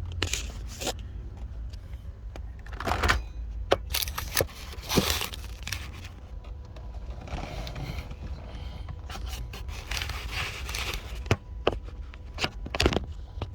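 Plastic scraping and rubbing with several sharp clicks, from a wiring plug and its latch on a Mercedes W140 climate control unit being worked with an angle pick and fingers to release it.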